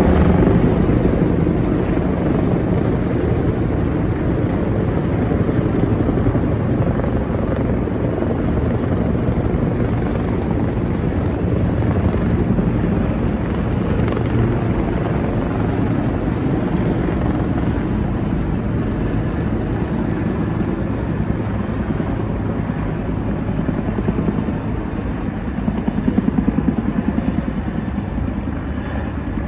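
A formation of several helicopters flying low overhead, their rotors chopping steadily.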